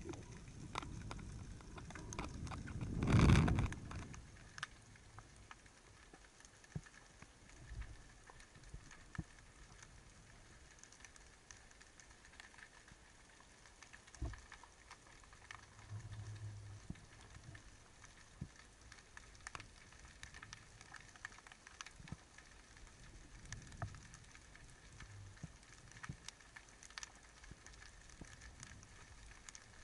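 Underwater ambience heard through a diver's camera: a faint, steady crackle of many small clicks and pops. A louder low rush of water swells and fades about three seconds in.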